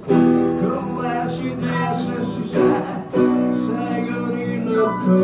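Acoustic guitar strumming under held sung notes between lyric lines of a song.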